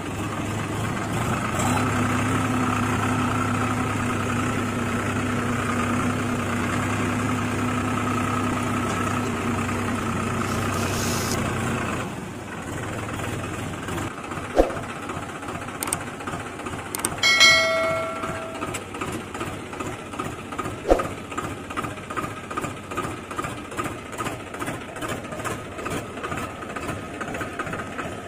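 Toy tractor's motor running as its front blade pushes sand: a steady hum for about twelve seconds, then a quieter, rhythmic chugging like an idling engine. A short ringing tone sounds about two-thirds of the way in, with a couple of sharp clicks.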